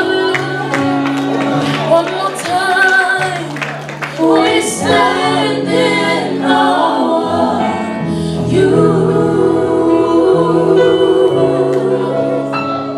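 Gospel worship music: singing with wavering, sliding vocal lines over held chords and a bass line that steps between notes.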